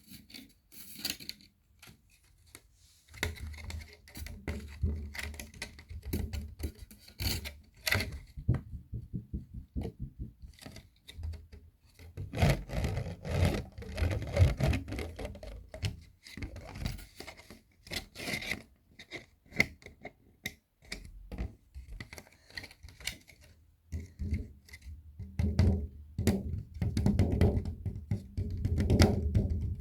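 Fingers tapping, scratching and rubbing a round cake box and its plastic lid: scattered sharp taps and clicks, with longer stretches of rubbing and handling a few seconds in, around the middle, and near the end.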